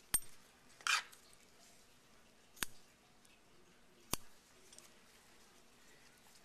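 Metal dissecting scissors snipping at a preserved rat's skin: a few short, sharp metallic clicks of the blades closing, with one longer snip about a second in.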